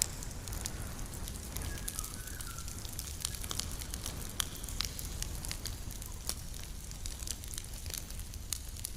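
Campfire burning, with irregular sharp pops and crackles over a steady low rumble.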